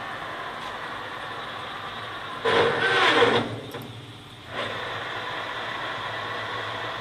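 C6266Y metal lathe running with a steady machine hum. About two and a half seconds in, a louder wavering burst lasts about a second; the sound then drops off briefly before the steady running comes back.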